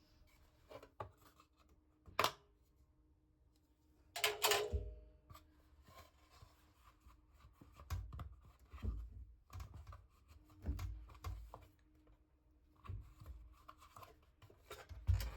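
Scattered handling sounds during washing machine drum cleaning: sharp clicks and knocks, a brief rustling or tearing about four seconds in, and irregular soft knocks and scrapes.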